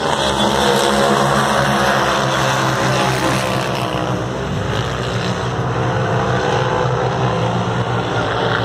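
A pack of turbocharged racing UTVs (side-by-sides) launching from the start line and accelerating away together, many engines running loud at once. The sound eases slightly from about four seconds in as the field moves down the track.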